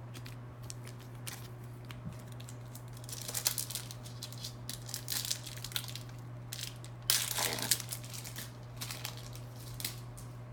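A 1999 Bowman Chrome football card pack wrapper being torn open and crinkled in short bursts, loudest about seven seconds in, with light ticks and taps in between.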